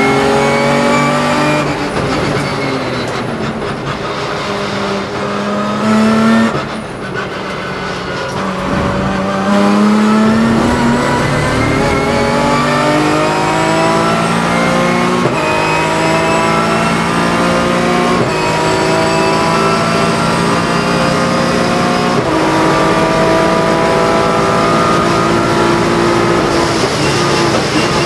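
The BMW S50B32 3.2-litre straight-six of a 1996 M3 E36 race car, pulling hard on track and heard from inside the cockpit. The revs fall over the first few seconds, then climb through several quick upshifts of the sequential gearbox, each a sudden drop in pitch. The revs fall again near the end.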